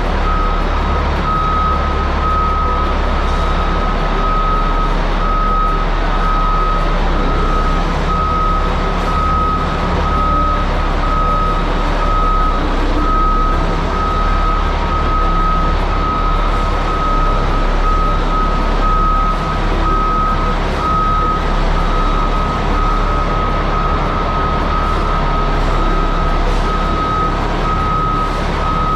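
Caterpillar 627G scraper's diesel engine running steadily under a back-up alarm that beeps over and over at an even pace, the sign that the machine is in reverse.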